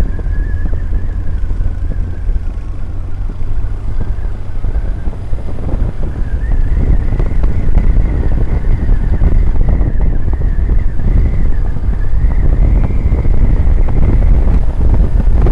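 Wind buffeting the helmet-mounted microphone over the running engine of a BMW R1150GS boxer-twin motorcycle at road speed. About six seconds in it gets louder and a wavering tone rises a little in pitch, as the bike picks up speed.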